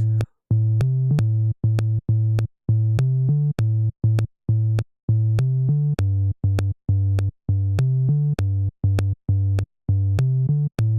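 Synthesizer bass line playing in a repeating loop: short, separated low notes, about two a second, each starting with a click and stepping up and down between a few pitches.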